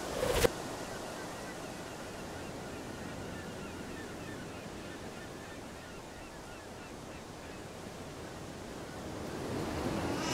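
A steady rushing noise like wind and surf, with one sharp crack about half a second in and the level swelling near the end.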